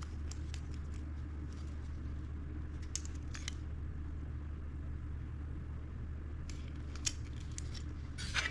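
A few light clicks and ticks of small plastic and wire parts being handled, over a steady low hum.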